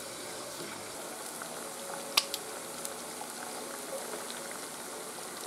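Sugar syrup at a rolling boil in a metal pot, a steady bubbling hiss. A sharp click about two seconds in.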